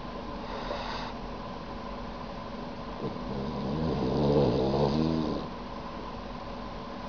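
Sleeping dog snoring: a faint breath near the start, then one long snore from about three seconds in to past five, rising and falling in pitch, over a steady faint hum.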